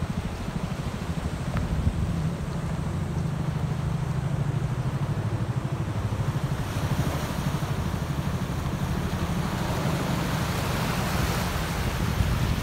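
Wind buffeting the microphone in a steady low rumble, with the hiss of surf washing over the rocks growing louder in the second half.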